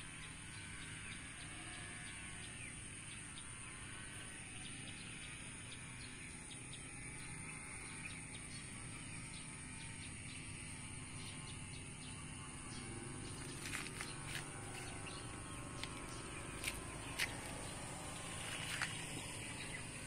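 Evening countryside ambience: birds chirping and calling over a steady high-pitched hum, with a few short, sharp chirps or clicks in the last few seconds.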